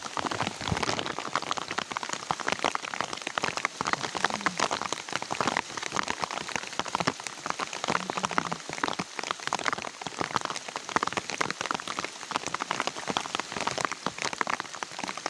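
Steady rain, dense raindrops striking a surface close to the microphone as a continuous irregular crackle.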